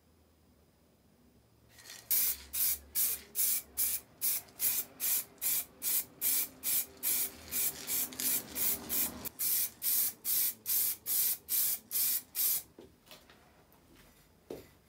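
Paint spraying onto the grater's metal body in short, rapid hissing bursts, about two or three a second. The bursts start about two seconds in and stop about two seconds before the end.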